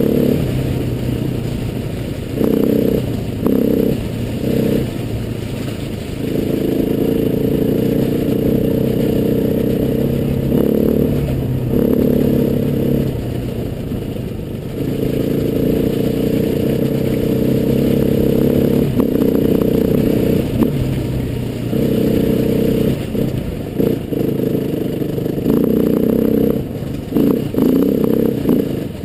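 Trail motorcycle engine pulling along a muddy lane, the throttle opened and backed off over and over so the engine note swells and drops, with a few sharp knocks in between.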